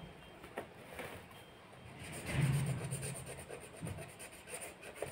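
Felt-tip marker rubbing and scratching on paper as a card border is coloured in, with a few light ticks and a brief louder scuff about halfway through.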